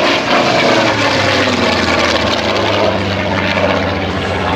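Supermarine Spitfire Mk XIX's Rolls-Royce Griffon V12 engine running at high power on a close pass, loudest just after the start. Its note drops steadily in pitch as the aircraft passes and pulls away.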